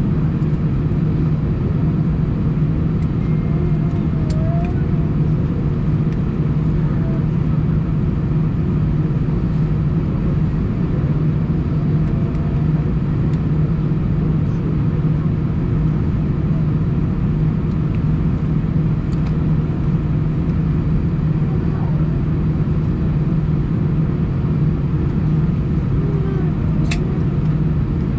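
Airbus A319 cabin noise on the ground, the engines idling with a steady low hum, and a faint click near the end.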